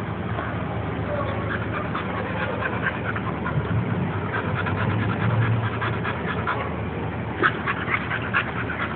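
Bull Terriers vocalizing in play: short, high, nasal yips and squeaks come in quick runs, with a denser burst near the end.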